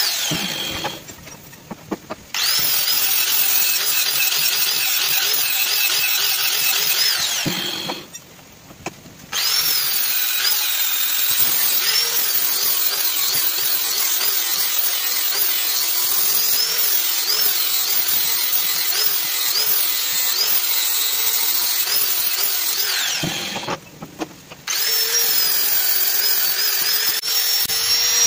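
Electric angle grinder with a flap disc grinding a steel knife blank cut from an old leaf spring, a loud steady grinding with a whine that wavers up and down as the pressure on the disc changes. It breaks off three times for about a second each, when the disc comes off the steel.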